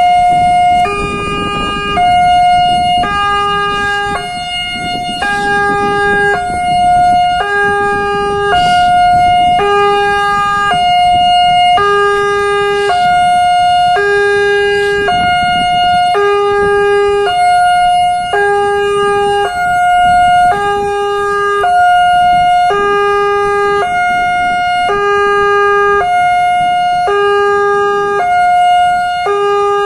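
Railway level-crossing warning siren sounding a steady two-tone alternation, high and low tones of about a second each, the signal that a train is approaching the crossing. Low road-traffic rumble underneath.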